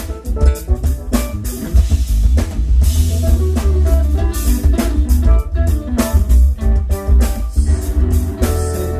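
Live band playing an instrumental at a soundcheck: a drum kit hitting hard over heavy bass, with pitched instruments playing notes over it and held chords near the end.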